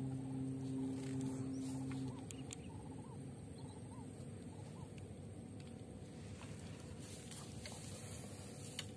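Quiet open-air ambience: a steady low hum stops about two seconds in, then a series of about five soft, evenly spaced chirps and a couple of faint clicks.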